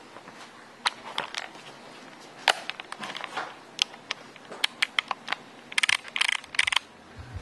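Scattered clicks and knocks from handling as the camera is carried, then several short bursts of gear grinding, about six seconds in, from the autofocus motor of a Canon EF-S 18-135 mm (non-STM) lens as it refocuses.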